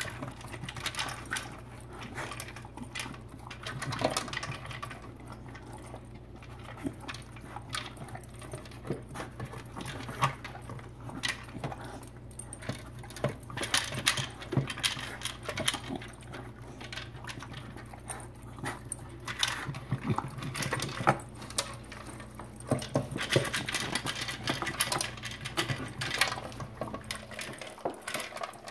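Dogs eating from plastic slow-feeder bowls: food rattles and clicks against the ridged plastic in quick, irregular clicks, with licking and chewing.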